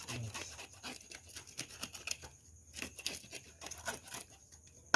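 A Nile tilapia being cleaned by hand: a run of quick, irregular scraping strokes, with a short lull about two and a half seconds in.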